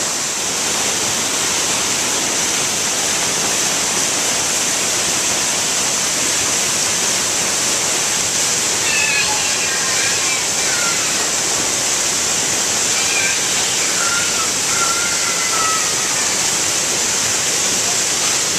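Waterfall pouring down onto rocks close by: a steady, loud rush of falling water, heavy in the hiss.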